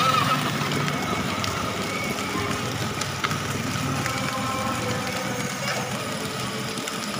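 Children's battery-powered ride-on toy jeep driving: a steady electric motor whine under the hard plastic wheels rumbling and rattling over rough paving, with a few small knocks.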